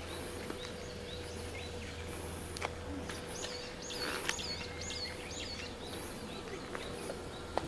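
Birds chirping in short calls, busiest about halfway through, over a faint steady hum, with a few light clicks.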